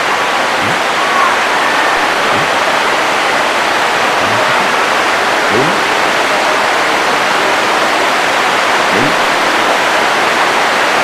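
Steady, even hiss of room and recording noise, with faint off-mic speech a few times, an audience member answering from a distance.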